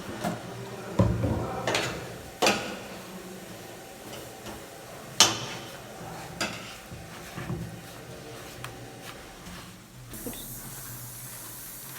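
Scattered clinks and knocks of a mixing bowl and utensils as flour and oil are mixed for pastry dough, the sharpest knock about five seconds in.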